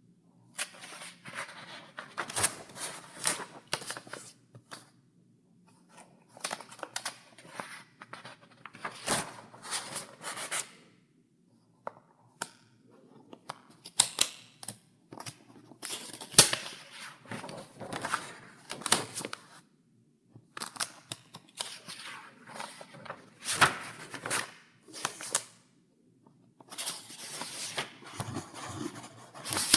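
Paper pages in a file being turned over one after another: crisp rustling and sharp crackles in bursts, each page turn followed by a short pause.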